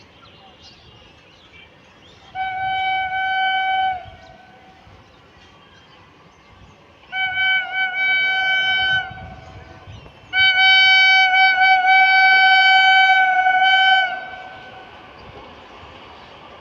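Indian Railways locomotive horn of the Kolkata Garib Rath Express sounding three blasts, each a single steady chord-like note. The first and second last about two seconds each; the third is the longest and loudest, held for nearly four seconds.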